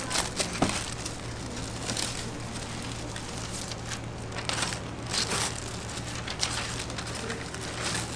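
Paper and cardboard rustling in short bursts as parchment paper is tucked over cakes and paperboard cake boxes are handled and folded shut, over a steady low hum.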